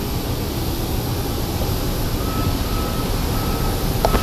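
Steady low rumble of airliner noise as the plane sits at the gate, with a faint on-and-off whine from about halfway through. A single sharp knock comes near the end.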